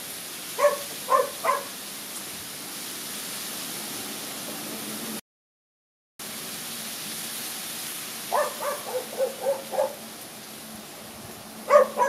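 Steady outdoor hiss with short, sharp animal calls in quick runs: three close together about half a second in, and about seven more near the end. The sound cuts out completely for about a second in the middle.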